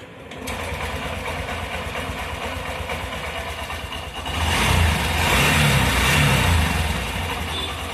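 Honda Shine motorcycle's single-cylinder four-stroke engine starting and idling, briefly revved from about four seconds in, then settling back to idle. It runs with no abnormal noise after the timing chain and its tensioner were refitted.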